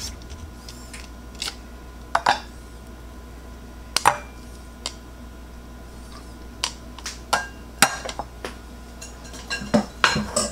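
Metal kitchen tongs and a wire-mesh strainer clicking and clinking against ceramic bowls as cooked ramen noodles are portioned out: scattered, irregular sharp clinks, coming more often near the end.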